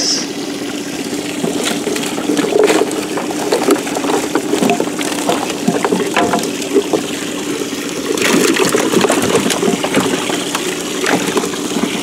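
Water streaming and dripping off a cast net as it is hauled out of the water into a boat, with many small taps and rattles as the net's lead weights and its catch of baitfish land on the deck.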